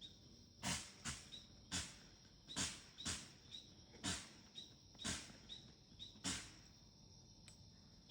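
A rapid, irregular series of about ten short, sharp animal calls, each falling in pitch, over a steady chorus of crickets.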